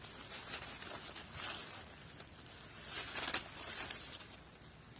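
Rustling and crackling of dry pumpkin vines and leaves as the stem is cut free from the main vine and the pumpkin is handled, in several short soft bursts.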